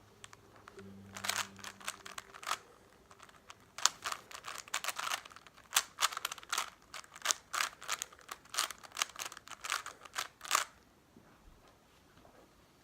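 Rubik's Cube being turned quickly by hand, its plastic layers clacking in rapid, irregular runs of clicks that stop abruptly near the end.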